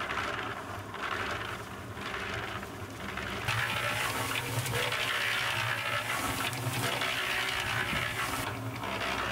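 Ozito electric cement mixer running, wet concrete mix churning in the turning drum over the steady hum of its motor, with the drum filled to about its maximum load of four 20 kg bags. The churning swells and fades for the first few seconds, then runs steadier and louder.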